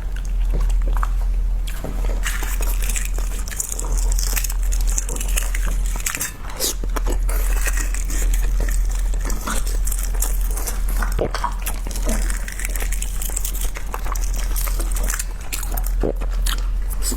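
A person chewing food close to the microphone, with many small wet clicks and crackles of the mouth, over a steady low hum.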